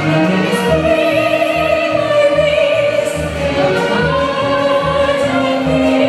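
A soprano singing held notes with a wide vibrato into a handheld microphone, over a musical accompaniment with a steady low beat.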